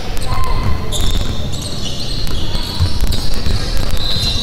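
A basketball being dribbled on a hardwood court during play, with short, sharp sneaker squeaks on the floor.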